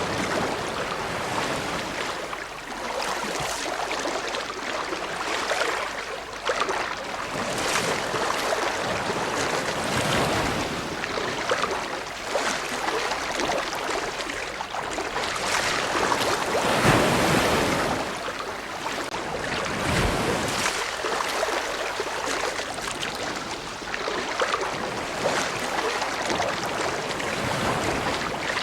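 Ocean surf: waves breaking and washing in with a continuous rushing hiss that swells and eases every few seconds, the strongest surge a little past halfway.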